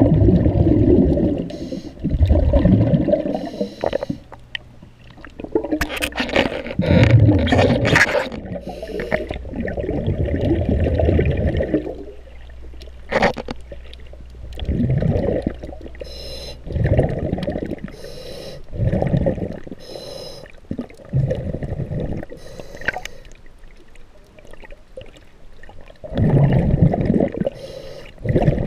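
Water sloshing and gurgling around a camera held just under the surface beside a boat hull, heard muffled through the submerged microphone in irregular surges, with a couple of sharp knocks.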